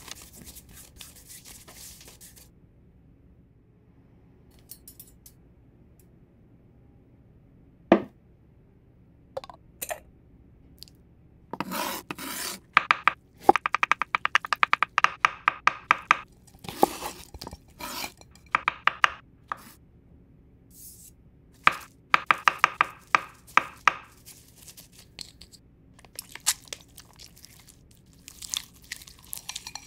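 Chef's knife finely chopping pickled gherkins on a wooden cutting board: a few single knocks, then two fast runs of rapid strokes in the middle. At the start, a soft rustle of breadcrumbs being sprinkled onto a fish fillet.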